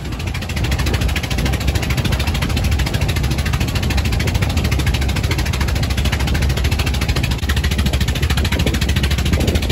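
Outrigger fishing boat's engine running steadily under way, loud and close, with a fast, even pulsing beat.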